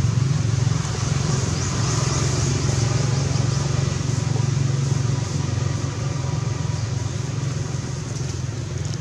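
Steady low engine rumble, running without a break and easing off a little about halfway through.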